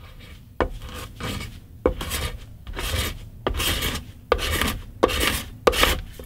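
Paint scraper drawn in repeated strokes, about two a second, across the mahogany back of a Gibson SG Special body, lifting a finish softened by chemical paint stripper. Each stroke starts with a click and runs into a short scrape.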